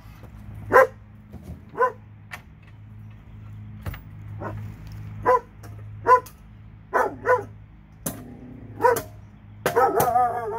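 A dog barking in short single barks, irregularly spaced a second or more apart, with a quick pair in the middle and a faster run of barks near the end.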